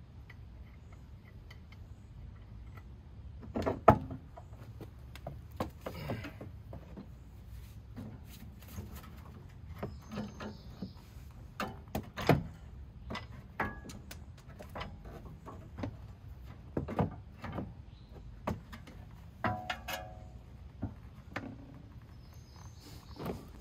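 Irregular knocks and clunks of a BMW X5 E53 front strut and coil spring assembly being worked free of its top mount and handled out of the wheel well. The loudest knock comes about four seconds in.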